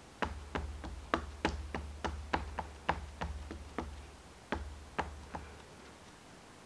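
Round dye ink pad being dabbed repeatedly onto a clear acrylic stamp to ink it: a run of quick, sharp plastic taps, about three a second, that stops about a second before the end.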